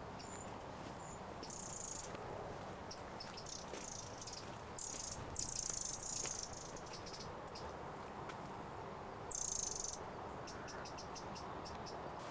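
High-pitched wildlife chirping: quick runs of short chirps and buzzing trills over a steady hiss. The loudest buzzes come about five to six seconds in and again near ten seconds.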